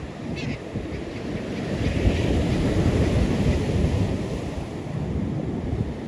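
Wind buffeting the microphone in gusts, over the steady hiss of surf breaking on the beach; the wind rumble gets louder about two seconds in.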